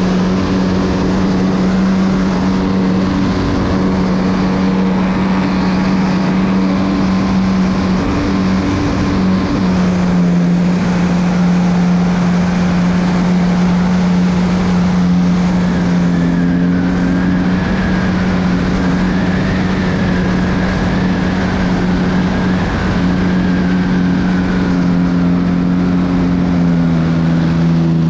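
Model airplane's single-cylinder engine and propeller running steadily in flight, heard from a camera mounted on the plane, with wind rushing over the microphone. The engine's pitch dips slightly about ten seconds in and shifts again near the end as the throttle changes.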